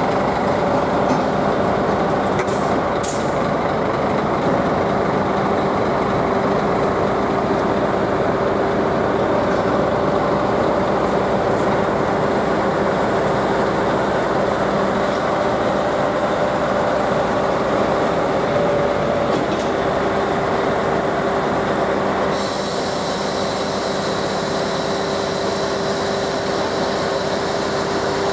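Scania lorry's diesel engine running at low revs as the truck manoeuvres slowly, a steady drone.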